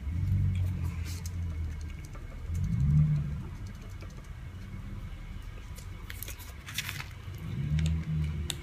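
Low rumbling hum that swells three times. Light clicks and rustles near the end as heated EVA foam is pressed onto a wooden thermoforming mould.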